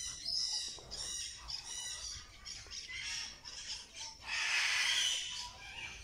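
Many small aviary birds chirping and calling together, with one louder rasping sound lasting about a second, just after four seconds in.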